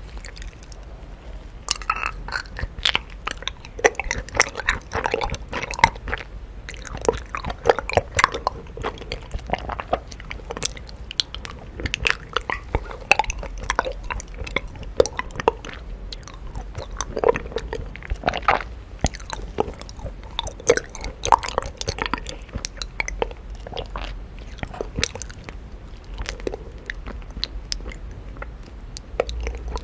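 A person chewing and biting honeycomb, with an irregular, continuous run of crunches and small clicking mouth sounds.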